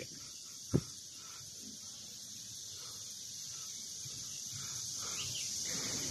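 Steady high-pitched drone of insects singing in the summer heat, with a single sharp click about three-quarters of a second in.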